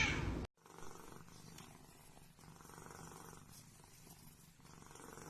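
A cat purring quietly, the purr swelling and fading in cycles of about a second.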